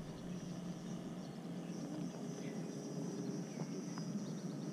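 Insects droning steadily on one high pitch, with a few faint ticks now and then.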